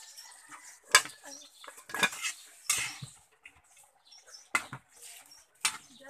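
Metal spatula knocking and scraping against a black wok as chicken soup is stirred: about five sharp clinks at uneven intervals, with quieter scraping between.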